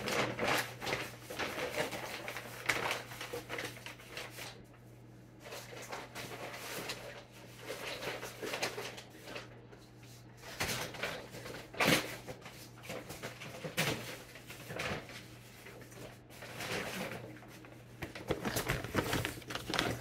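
Brown paper grocery bags rustling and crinkling as they are handled and set on a countertop, with scattered knocks and thumps, the sharpest about twelve seconds in. A low steady hum runs underneath.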